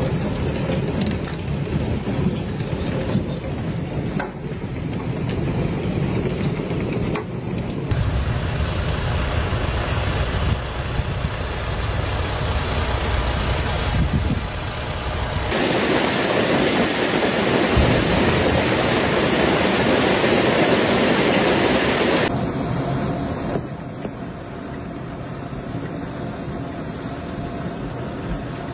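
Heavy hail coming down: a steady din of hailstones pelting water, ground and vehicles. The sound changes abruptly three times as one short clip cuts to the next.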